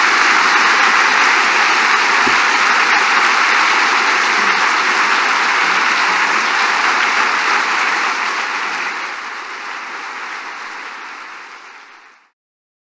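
Audience applauding, a steady mass of clapping that fades over the last few seconds and then cuts off abruptly near the end.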